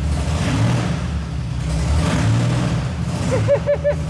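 DeLorean DMC-12's PRV V6 engine running with no muffler, straight-piped and very loud, just after its first start following reassembly. It idles a little shaky, the level swelling and easing every second or so.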